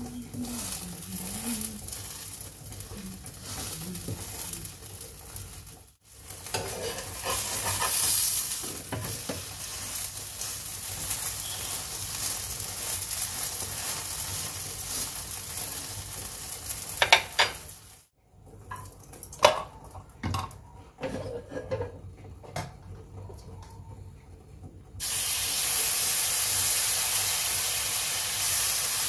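Moong dal and oats chilla frying in desi ghee on a hot flat pan, sizzling, with scrapes and clinks of tongs and spatula as it is turned. About four seconds before the end the sizzle jumps to a loud, steady hiss as fresh batter goes onto the hot pan.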